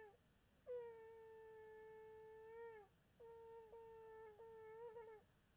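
Shofar (ram's horn) blown in faint, steady blasts. One long note dips in pitch as it ends, and the next is broken into three shorter notes with a wavering finish.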